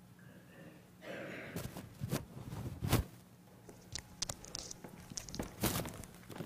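Rustling and scattered clicks of handling close to a microphone worn by the speaker, as a cloth face mask is put on.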